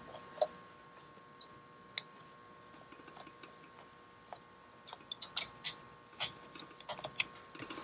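Faint scattered clicks and taps of plastic parts being handled as a spring mechanism is fitted into an Apple Extended Keyboard II's plastic case, coming more often in the last few seconds.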